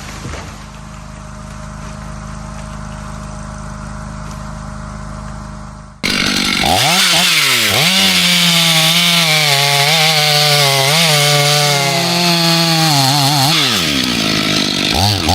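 A steady low hum for about six seconds, then, cut in abruptly, a two-stroke chainsaw running near full throttle. Its pitch sags and recovers several times as it cuts through wood.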